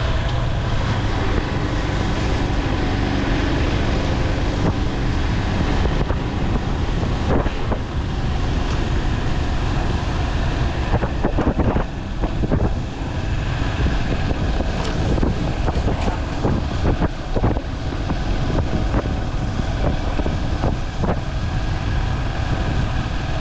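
Commuter motorcycle riding along a road: the engine runs steadily under wind rushing over the microphone, with some uneven buffeting about halfway through.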